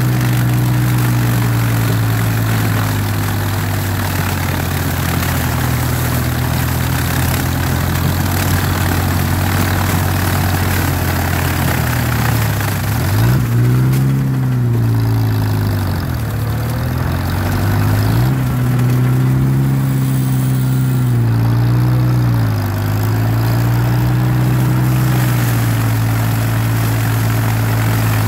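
Farmall Cub tractor's four-cylinder engine running steadily while chopping dry corn stalks. In the second half it bogs down and picks back up several times as the stalks load it. A noisy rustle of dry stalks runs underneath.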